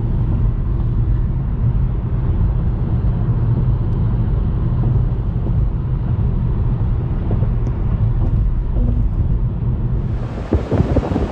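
Steady low rumble of road and engine noise inside a moving car's cabin. About ten seconds in it changes to gusty wind on the microphone over breaking surf.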